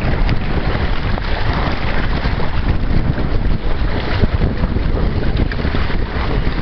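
Steady wind buffeting the microphone, with choppy water splashing around the hull of a Hobie Tandem Island sailing trimaran under way.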